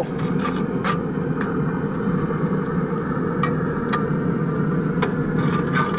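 Spatula stirring chili in a cast iron skillet, with a few light scrapes and clicks against the pan over a steady low rumble.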